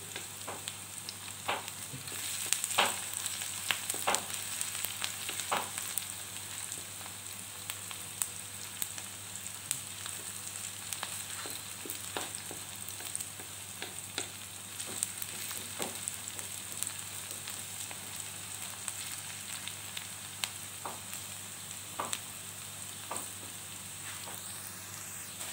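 Sliced onion and garlic sautéing in oil in a wok: a steady sizzle, broken by scattered scrapes and taps of a wooden spoon stirring against the pan, the loudest about three seconds in.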